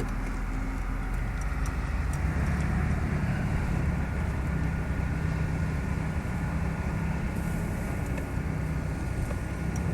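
Steady engine rumble and road noise of a moving car, heard from inside the car.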